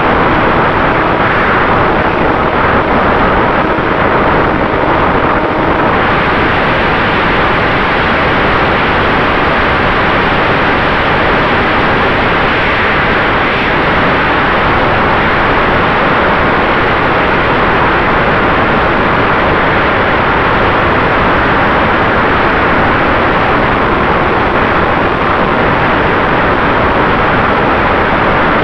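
Steady rush of wind and propeller noise from an RC plane's onboard camera in flight, with a faint steady whine from its Turnigy brushless electric motor.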